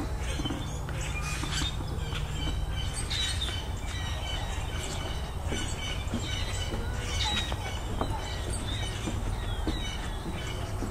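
Several small birds chirping and singing in quick, repeated calls, over a steady low rumble.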